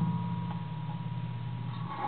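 Homemade noise box, a metal box strung with wires and springs, ringing on after being played: a low steady tone with a fainter higher one, slowly fading, with a few small ticks.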